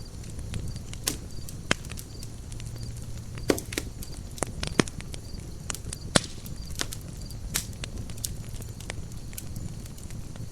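Campfire burning, with irregular crackles and sharp pops of burning wood over a low steady rumble of flame. A few louder snaps stand out, the loudest about six seconds in.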